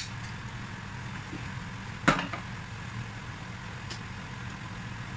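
Chopsticks click sharply once against a ceramic plate about two seconds in, with a fainter tick near four seconds, over a steady low machine hum.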